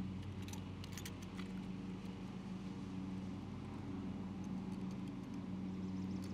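A few light clicks from a utility knife being worked against a black cable to strip its outer jacket, over a steady low hum.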